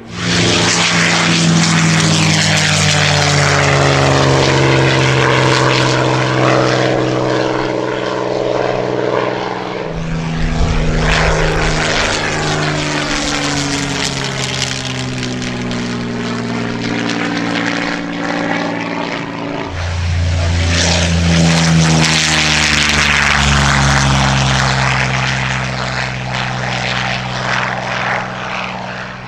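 Supermarine Spitfire and other WWII propeller fighters making display passes, the piston engine and propeller drone sliding in pitch as each aircraft goes by. The sound jumps abruptly about ten and twenty seconds in.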